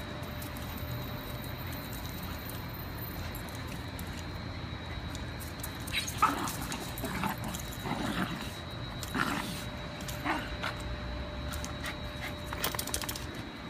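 A Pembroke Welsh corgi and a dachshund play-wrestling, with short dog vocal bursts coming every second or so from about halfway through.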